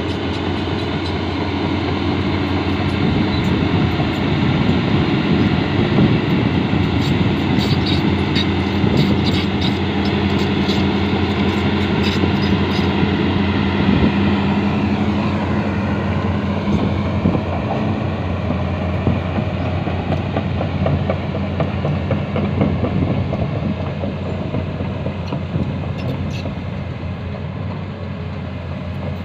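Excavator's diesel engine running steadily, with its hydraulics working. There are scattered light metallic clicks a third of the way in, and a shift in pitch about halfway through.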